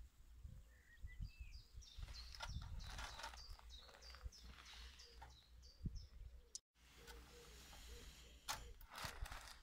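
A small bird chirping, a run of short falling notes repeated every half second or so. Light knocks and rustles come from pipe fittings and plastic being handled, the loudest of them about two-thirds of the way in. Wind rumbles on the microphone throughout.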